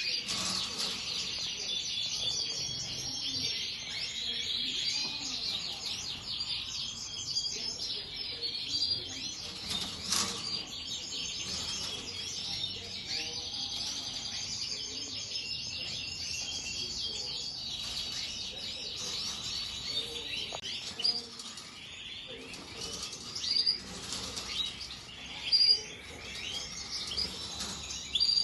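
Many small cage birds in a bird room chirping and twittering together without a break, with wings fluttering. A few short, louder sounds come near the end.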